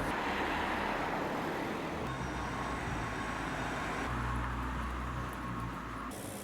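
Steady road traffic noise, with a low engine rumble from a passing vehicle about four to six seconds in.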